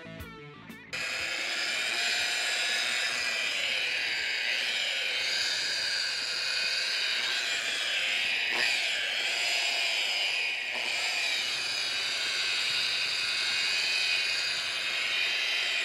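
Electric rotary polisher with a foam buffing pad running against a car hood's paint, starting about a second in, its high whine wavering as the load shifts. It is buffing freshly sprayed clearcoat to blend a spot repair into the original finish.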